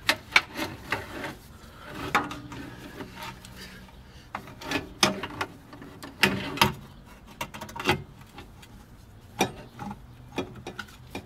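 Scattered sharp clicks, knocks and rubbing of parts being handled by hand while an oil filter and braided oil-line fittings are fitted onto a remote oil filter adapter. The loudest clicks come at the very start.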